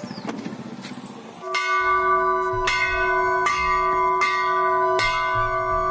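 Large hanging temple bell rung by hand: about a second and a half in it starts being struck, about five strikes a little under a second apart, each stroke ringing on into the next.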